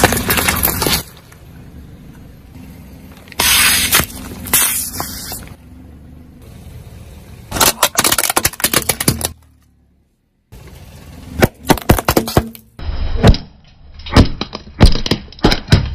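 Car tyres rolling over and crushing brittle objects: several bursts of crunching and cracking over a steady low engine hum. The sound cuts off near the middle, and a quicker run of sharp cracks follows.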